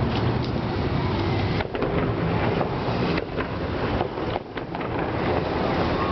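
Fireworks bursting in a continuous rumble, with a few sharper bangs breaking through.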